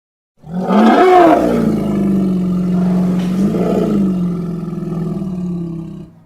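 Triceratops roar sound effect: one long, low, pitched creature roar that starts about half a second in, swoops up and down in pitch near its start and again around the middle, holds steady in between, and cuts off abruptly near the end.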